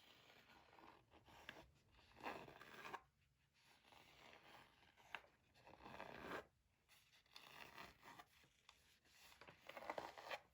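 Quiet ASMR rubbing and scratching of hands over gaming gear: about six soft scratchy strokes of roughly a second each, with a few light clicks in between.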